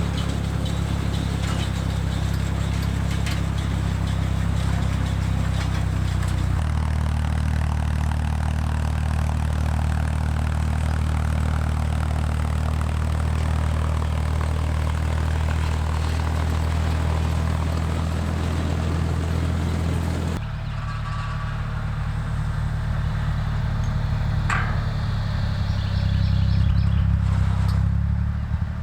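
Tractor engine running steadily, powering a round baler. Its low note shifts about six seconds in and changes abruptly about twenty seconds in.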